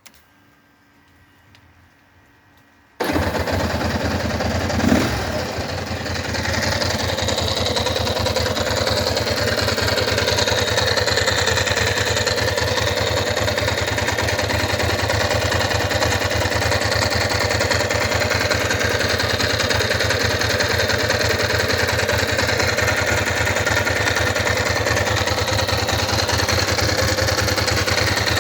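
An engine starts abruptly about three seconds in, with a brief louder burst about two seconds later, then runs steadily at idle.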